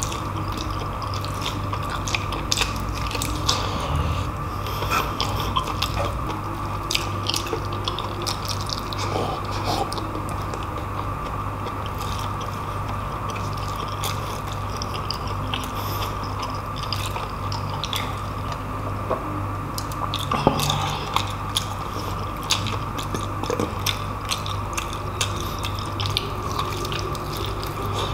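Close-miked chewing of braised pork hock (humba): wet chewing and lip smacks with many small mouth clicks, over a steady background hum.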